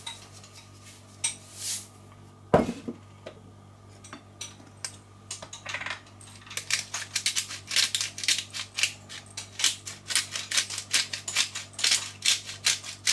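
Hand pepper mill being twisted, giving a fast run of dry grinding clicks through the second half. A single sharp knock sounds about two and a half seconds in.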